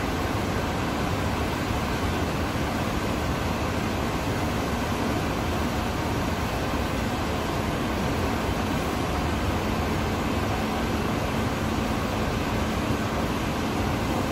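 Steady machinery drone and hiss in a steel workshop, unchanging throughout, with no distinct knocks or pauses.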